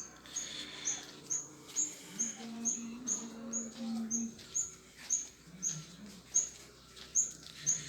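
A small bird repeating a short, high chirp over and over, about twice a second at an even pace.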